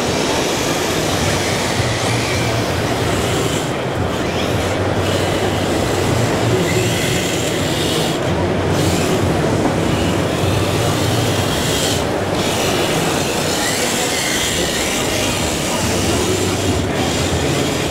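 Steady din of RC drift cars running on an indoor track: small electric motors whining up and down in pitch, with tyres sliding over the smooth, shiny surface.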